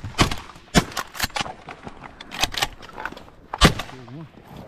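A volley of shotgun shots from two duck hunters firing at passing ducks: about six sharp blasts at uneven intervals, the loudest about two thirds of the way through.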